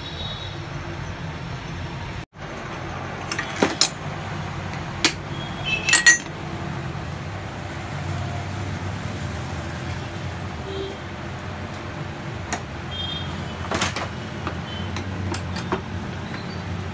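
A handful of sharp metallic clinks and knocks as a Royal Enfield shock absorber is handled and clamped in a steel bench vise, the loudest about six seconds in, over a steady low hum.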